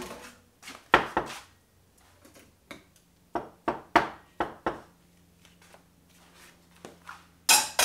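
Scattered knocks and clinks of kitchen utensils and dishes being handled at a stovetop: a sharp knock about a second in, a run of about five quick taps around the middle, and a louder clatter near the end.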